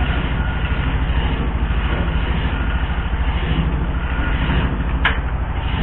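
A heavy engine running steadily with an even low throb. A single sharp metallic click about five seconds in.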